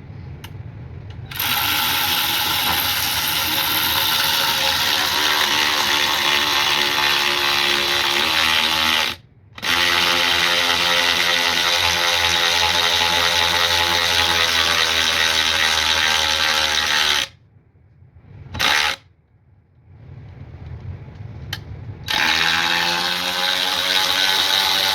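Byczone 3/8-inch cordless electric ratchet running under its trigger in long spells, with a short stop about nine seconds in and a longer pause later broken by a brief blip.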